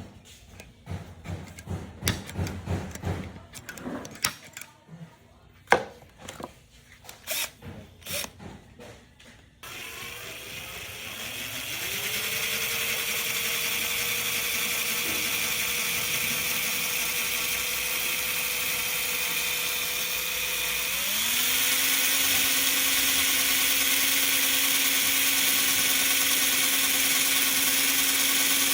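Scattered knocks and clicks of handling, then a power tool's electric motor switched on about ten seconds in. Its whine rises to a steady pitch, then steps up to a higher speed a little past twenty seconds.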